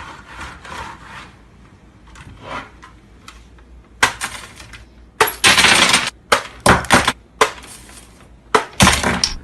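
Clattering knocks and crashes: a sharp knock about four seconds in, then a string of loud rattling impacts, one lasting most of a second.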